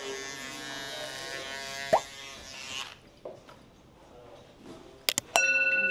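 Barber's electric hair clipper buzzing steadily, switched off about three seconds in, with a click shortly before. Near the end come two sharp clicks, then a loud steady tone begins.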